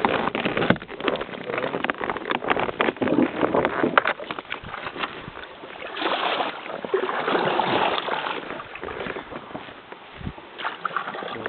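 Paddling an inflatable kayak: paddle blades splashing in the water, with scattered knocks and rustles in the first few seconds, then a louder stretch of steady rushing water noise from about six to nine seconds in.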